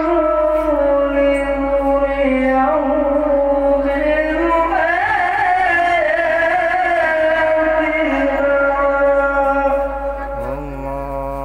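Male Quran reciter (qari) chanting tilawah into a handheld microphone in a long-breathed melodic style: long held notes with an ornamented, wavering run in the middle, the phrase tailing off near the end.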